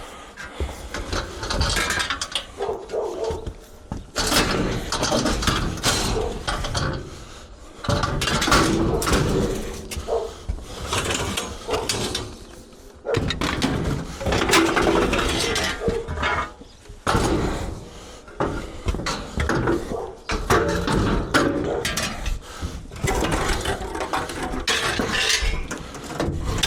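Scrap metal being handled and shifted about on a truck: irregular clanks, rattles and scrapes.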